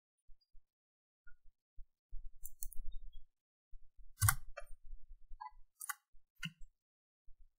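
A handful of short, sharp computer mouse and keyboard clicks, spread over a few seconds with the loudest a little past four seconds in, over faint low rumble.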